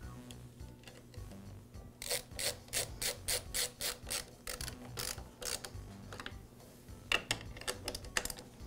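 Nut driver turning the nuts that hold the air box base onto a Husqvarna leaf blower's carburetor studs. It makes a quick run of sharp mechanical clicks, about three or four a second, starting about two seconds in, then a few more clicks near the end.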